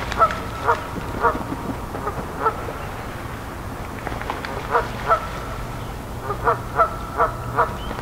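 Canada geese honking in runs of loud, short calls: a few in the first seconds, a pair midway, then four quick honks near the end, as the geese splash and chase across the water.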